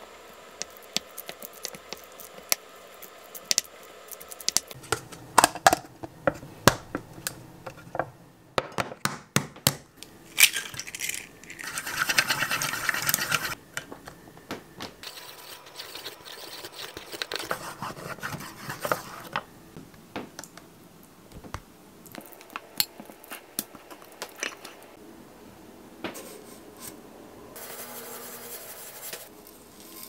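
Kitchen prep sounds: utensils clicking and clinking against bowls and dishes, with scraping. About twelve seconds in there is a hiss lasting a few seconds.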